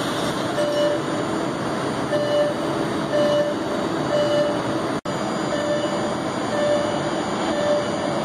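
Steady running noise of a new MBTA Red Line 1900-series subway train standing at the platform with its doors open, with a short beep repeating about once a second. The sound cuts out for an instant about five seconds in.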